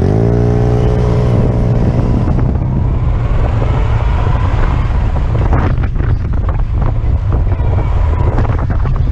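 A vehicle engine revs up sharply and holds at high revs while accelerating in pursuit. After about two and a half seconds it blends into loud rushing wind and buffeting on the microphone.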